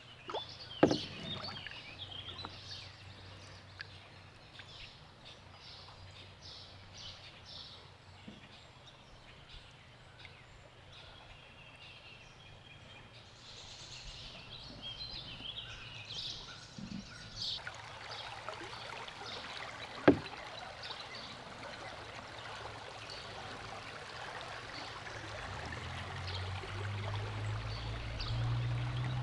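Canoe paddling on a river: water sounds around the hull, with two sharp knocks of the paddle against the canoe, about a second in and about twenty seconds in. The rush of moving water swells and grows louder through the second half.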